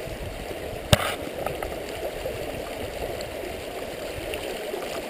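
Creek water running steadily, with a single sharp knock about a second in.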